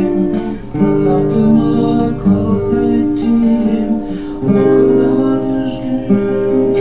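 Acoustic guitar playing chords, the chord changing about every one and a half to two seconds.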